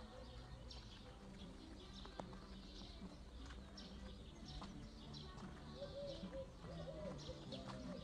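Small birds chirping, short high calls throughout, joined by low cooing calls from about six seconds in, over a faint low hum.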